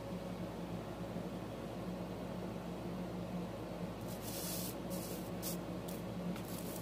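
Steady low hum and hiss of room background. From about four seconds in there are several short scratchy rustles as the drawing paper and a pencil are handled and moved.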